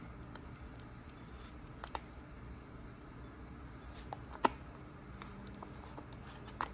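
A few sharp clicks and taps of pliers and screws against a metal faucet spray head as its aerator is twisted loose, the loudest about four and a half seconds in, over a low steady hum.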